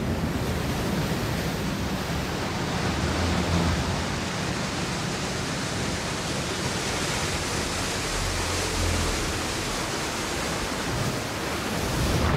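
Seawater rushing and surging into an aircraft carrier's hangar deck as the scuttled ship floods and sinks: a steady, dense rush of water noise with no let-up.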